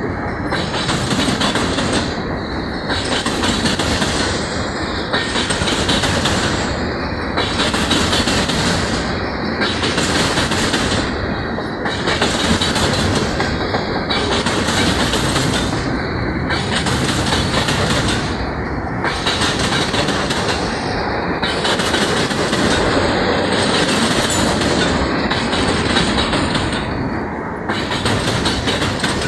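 Freight cars rolling past on the rails: a steady rumble and clatter of steel wheels over the track, rising and falling regularly about every two seconds.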